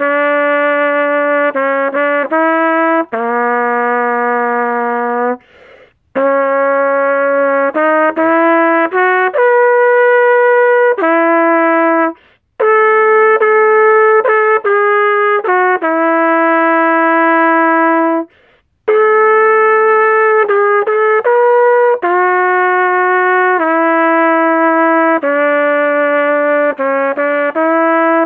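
An 1890s J.W. Pepper shepherd's crook cornet in high-pitch B-flat played solo: a melody of held notes with quicker runs between them, broken by three short pauses for breath.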